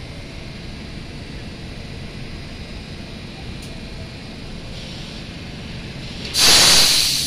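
R62 subway train on an elevated line with a steady low rumble. About six seconds in, a sudden loud burst of air hiss from the train's brakes fades away over about a second.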